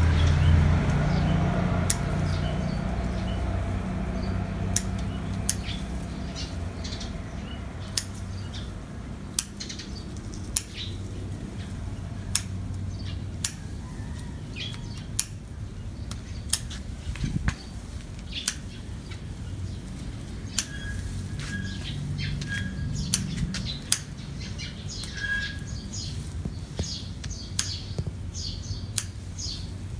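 Birds chirping, with short sharp snips every second or so as garlic chive stalks are cut at the base. A low vehicle rumble fades away in the first few seconds.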